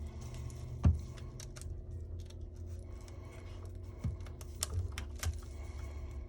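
Scattered small clicks and light knocks over a steady low hum, with one louder knock about a second in and a cluster of clicks in the second half.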